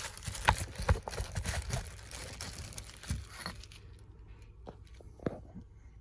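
Plastic clamshell housing of a cordless impact wrench being pried and pulled apart by hand: a quick run of clicks, knocks and scrapes for the first few seconds, then lighter handling with a couple of single clicks.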